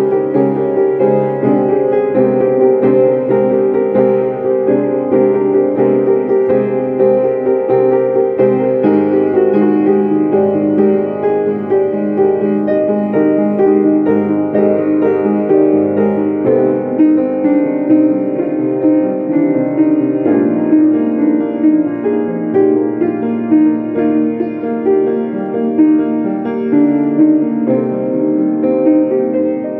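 Piano music, with notes held and ringing into one another.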